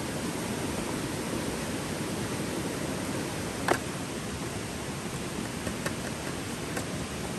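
Steady rush of a river flowing over stones, with one sharp tap about halfway through and a few faint ticks later.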